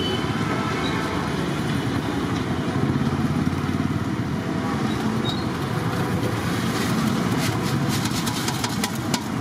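Steady low engine-like rumble. About seven seconds in comes a short run of light clattering as fried fritters are tipped from a steel bowl into a steel tray.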